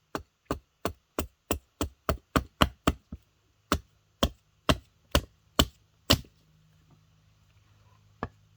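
Blade chopping into a dry log, about seventeen sharp strikes: quick at about three a second, then slower, stopping about six seconds in.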